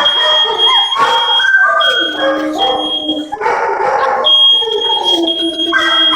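A smoke alarm sounding a shrill, steady high tone that breaks off a few times, while several dogs howl and yip along with it in overlapping, drawn-out calls that bend in pitch.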